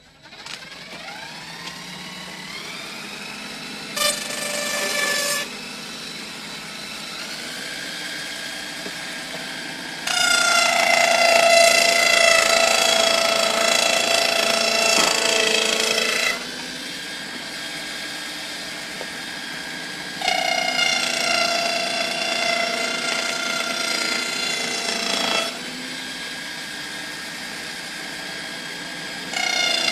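Whining motor and gear drive of a Lego-built table saw, spinning up at the start and then running steadily. Three times, and again near the end, it turns louder for several seconds with its pitch dipping as each bout begins, as when the blade is loaded by material.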